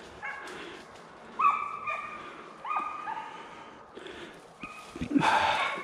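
Deer-hunting hounds baying on a deer's trail: about six drawn-out calls, each dropping in pitch at the end. Near the end comes a loud noisy burst with a few low thumps.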